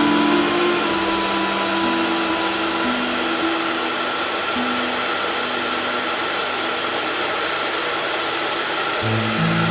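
Hot-air gun blowing steadily, with background music of held, stepping notes over it.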